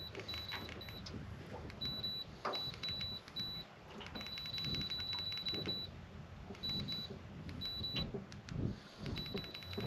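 Fishing reel being cranked in short spurts, its clicker ticking rapidly into a high buzz each time, with pauses between.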